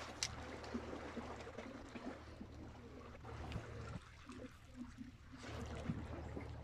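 Wind rumbling on the microphone over sea water lapping and splashing, with one sharp click about a quarter of a second in.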